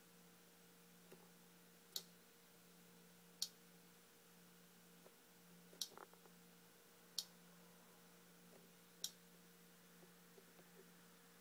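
Faint steady electrical hum with five short, sharp clicks a second or two apart as a finger taps a touchscreen phone.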